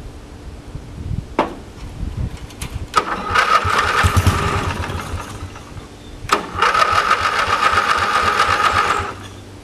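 Electric starter cranking the 11 hp Briggs & Stratton engine of a 1985 Craftsman rear-engine riding mower, primed with starter fluid after three years of sitting. A sharp click comes a little over a second in, then two cranking bursts of about two and a half seconds each, with a steady whine.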